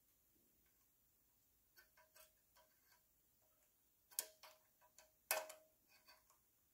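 Quiet, scattered metallic clicks as small springs and a thin linkage rod are hooked onto the carburetor linkage of a Honda EZ2500 generator engine, some clicks with a brief metallic ring. The two loudest come about four and five seconds in.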